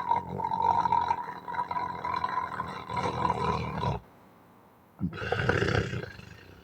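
Hard snoring by a sleeping man: a long, loud snore with a steady high note running through it cuts off about four seconds in, and after a second's pause a shorter snore follows.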